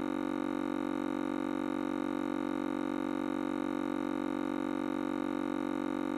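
A steady, unchanging drone of several held tones at once, strongest in a low-middle pitch, with no beat and no change in pitch or loudness.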